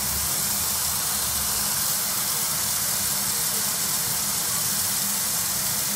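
Steam locomotive, a Midland 4F 0-6-0, standing with steam hissing steadily.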